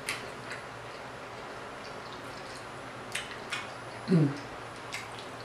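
A person chewing chitterlings close to the microphone, with a few small wet mouth clicks and smacks and one short falling 'mm' hum about four seconds in.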